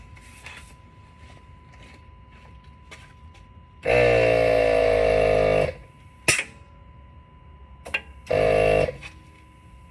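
A buzzing, pitched motor sound in two bursts, the first about two seconds long and the second about half a second, with a sharp click between them, over a faint steady high whine.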